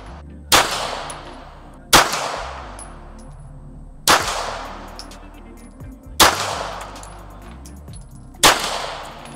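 Five 9mm pistol shots fired at a slow, deliberate pace, about two seconds apart, each a sharp crack with a tail that dies away over about a second.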